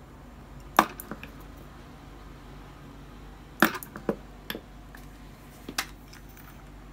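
Homemade microwave-oven-transformer spot welder firing: about five sharp snaps spread out, a couple followed by small crackles, over a low steady hum.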